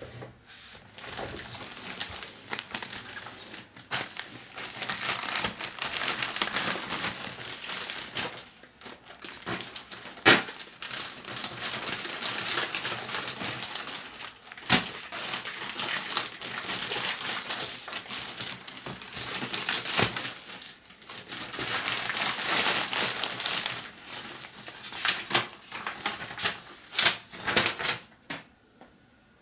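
Packaging crinkling and rustling as a new bag is unwrapped and handled, with a few sharp clicks or taps along the way.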